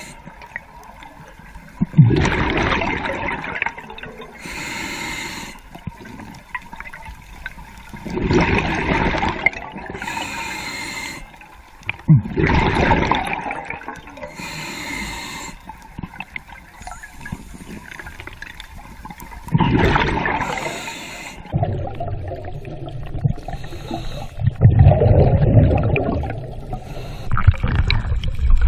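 Scuba diver breathing through a regulator underwater: a hissing inhale followed by a loud bubbling exhale, repeating about every five to seven seconds. Near the end a steadier low rush of water takes over.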